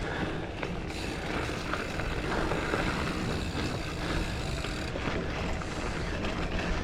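Giant Fathom mountain bike being ridden along a dirt trail: a steady rush of wind and tyre noise, with a few faint clicks and rattles.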